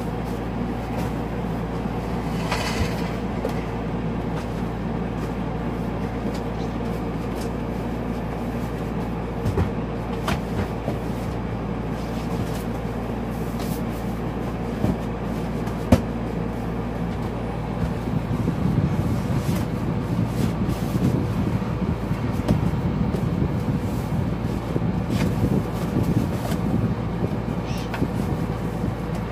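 Motorhome air conditioner running with a steady hum, under knocks and shuffling as the dinette's gas-strut table is lowered and seat cushions are fitted to make a bed. One sharp knock comes about halfway through, and the rustling and bumping get busier in the last third.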